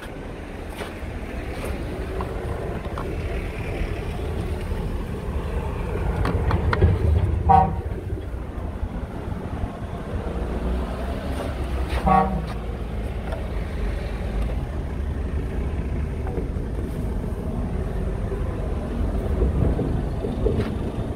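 Scania R580's V8 diesel engine idling with a steady low rumble. Two brief pitched toots are heard, about seven and twelve seconds in.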